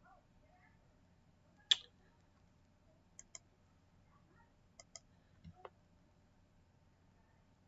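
Computer mouse clicking over a faint steady hum: one sharp click about two seconds in, then two quick double clicks, then a soft knock and one more click.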